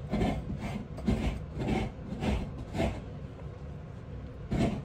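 Hands pressing and rubbing dry breadcrumbs onto battered corn dogs on a plate: a run of short scraping, rustling strokes about twice a second, then a pause and one more stroke near the end, over a steady low hum.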